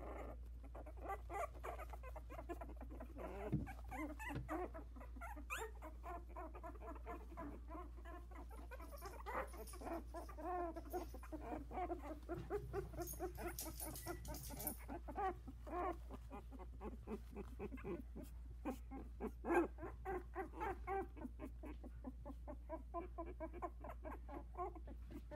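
A litter of 16-day-old Havanese puppies whimpering and squeaking, many short little cries following one another, with one louder yelp about three-quarters of the way through.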